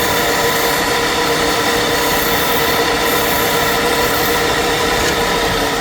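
Woodturning lathe at work on the spinning wood: a steady high whine over a harsh, hissing scrape, which falls away at the very end.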